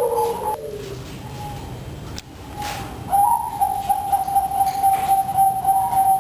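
Breeding perkutut (zebra doves) cooing: a high ringing coo breaks off about half a second in, and after a pause a long steady coo starts about three seconds in.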